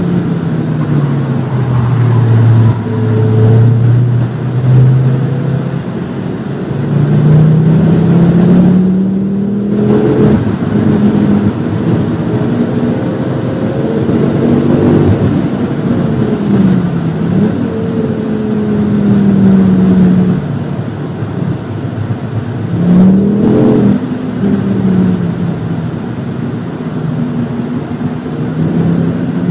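Volvo V50 T5's turbocharged five-cylinder engine, heard from inside the car at full throttle on track: its note climbs and drops repeatedly as it pulls through the gears. Near the end it falls away as the car brakes hard, with a few quick swings in pitch around the downshifts.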